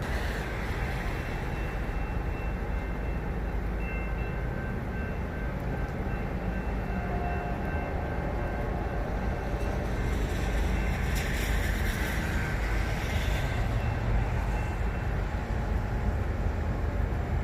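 Train rolling past: a steady low rumble with faint, steady high-pitched tones over it, growing a little louder with some rattling about ten seconds in.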